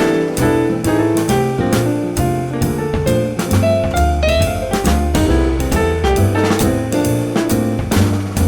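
Background jazz music: piano and a drum kit keeping a steady beat.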